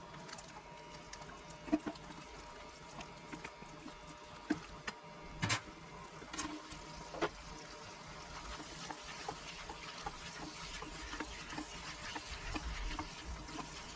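Chilli chicken sauce sizzling and bubbling in a nonstick frying pan, with a spatula knocking and scraping against the pan a few times. The sizzle grows louder in the second half.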